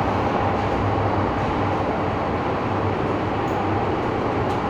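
Steady running noise inside an MTR Island Line M-Train car moving through a tunnel: wheels on the rails with a low hum, plus a couple of faint clicks near the end.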